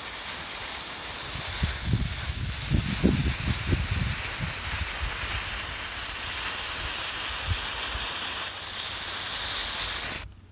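A one-foot length of Fast Cake cannon fuse burning with a steady hiss, with a few low thumps two to four seconds in. The hiss cuts off suddenly just after ten seconds as the fuse burns out.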